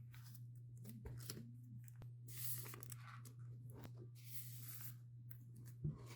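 Pokémon card packaging being handled: short bursts of rustling from booster packs and blister packaging, with small clicks and a sharp knock near the end, over a steady low electrical hum.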